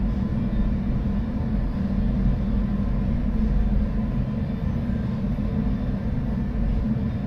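A steady low rumble with a faint constant hum, even in level throughout.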